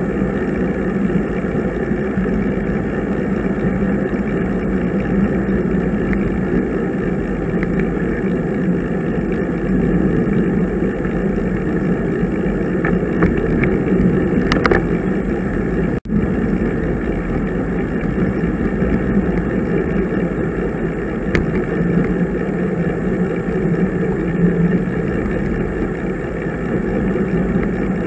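Steady wind rush and road noise on the microphone of a camera riding along on a road bicycle, with a sudden brief break in the sound just past halfway.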